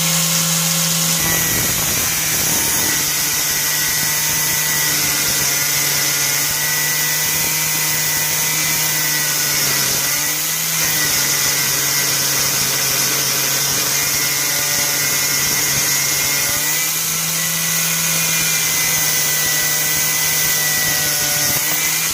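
Angle grinder in a chop-saw stand running at full speed and cutting through steel rebar: the motor's pitch sags under load about a second in, with the rough grinding noise of the cut over it, and rises back toward free-running speed about two-thirds of the way through.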